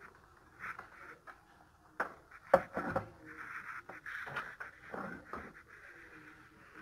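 Knocks and clatter of a CRT television's power-supply circuit board being handled and turned over on a wooden workbench. There are a few sharp knocks about two seconds in, the loudest about two and a half seconds in.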